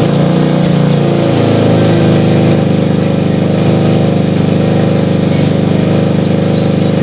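Fuel-injected motorcycle engine running. Its pitch shifts during the first couple of seconds, then it settles into a steady idle.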